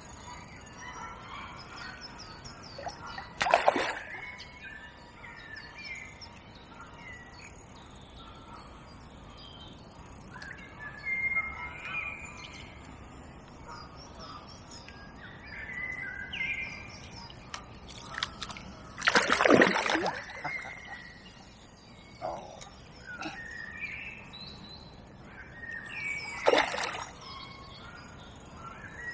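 Songbirds singing and calling without a break, with three splashes on the lake's surface: about three seconds in, about nineteen seconds in (the loudest), and near the end.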